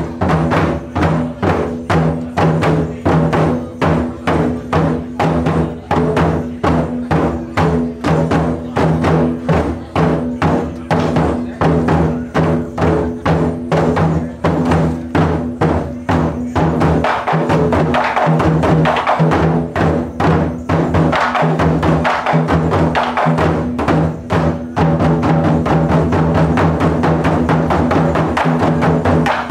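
Taiko ensemble drumming: large barrel drums struck with sticks in a steady beat of about two hits a second. The strokes grow denser about halfway through and build into a fast, nearly continuous roll over the last few seconds.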